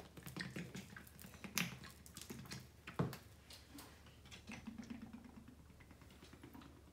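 Hands squishing thick glue-and-baby-powder slime in a plastic tub: faint, irregular sticky clicks and squelches.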